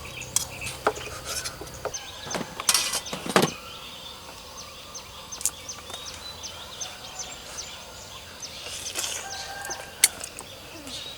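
Birds calling in short, high, repeated chirps, with a few sharp clicks and knocks between about two and a half and three and a half seconds in.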